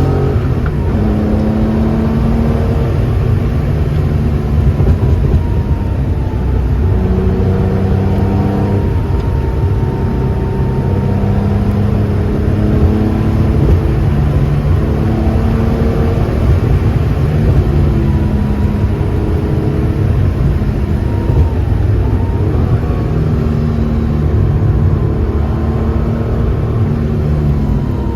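Porsche 2.7 RS-spec air-cooled flat-six running while the car is driven, its engine note stepping up and down in pitch every few seconds as the revs change.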